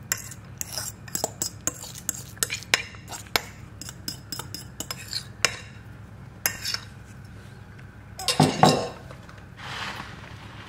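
A metal spoon or fork clinking and scraping against a bowl as a börek filling is worked and mixed, in a string of separate sharp clicks, with a louder clatter about eight and a half seconds in.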